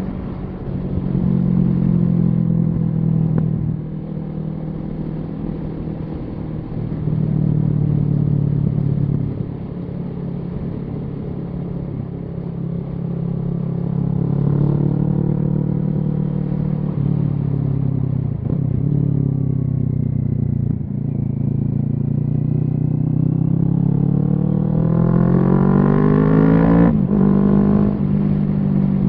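Kawasaki Z650's parallel-twin engine through a Yoshimura Alpha exhaust on the move, its note rising and falling as the throttle opens and closes. Near the end it climbs for a few seconds, then drops sharply at a gear change.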